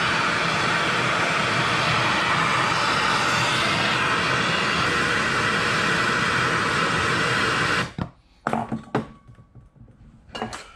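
Bernzomatic MAPP gas hand torch burning with a steady hiss while heating a seized bolt; the flame cuts off about eight seconds in, followed by a few light knocks as the torch is handled.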